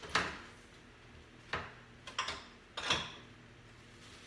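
A handful of sharp knocks and clinks, the first the loudest, spread over about three seconds, as someone off to one side handles things while getting out a storage jar.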